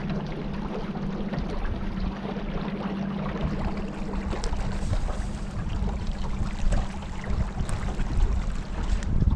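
A small boat's motor runs with a steady hum under the rush of water and wind.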